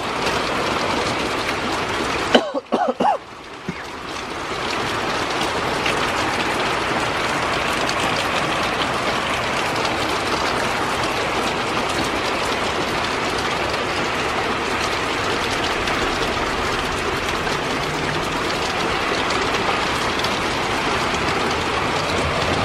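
Heavy thunderstorm rain pouring down steadily, briefly dropping away about two and a half seconds in before the downpour resumes.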